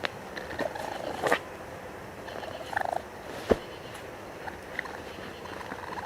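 Raccoon calling in a series of short chirps and a brief fluttering trill, with a sharp click about three and a half seconds in.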